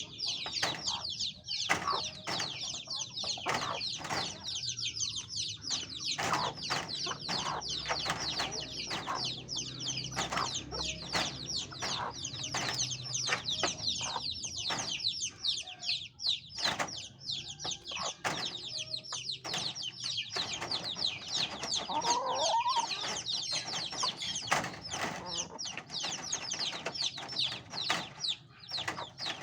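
Chicks peeping continuously, many rapid high-pitched falling chirps overlapping, with occasional lower clucks from an adult hen.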